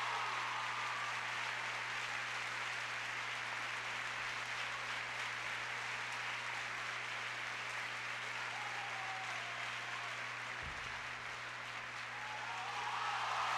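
Large theatre audience applauding steadily, with no music playing; the clapping swells again near the end.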